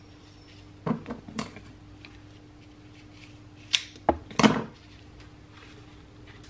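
Hands setting flowers onto the pages of a large hardback book for pressing: short paper-and-handling clicks and rustles in two brief clusters, about a second in and, louder, around four seconds in, over a faint steady hum.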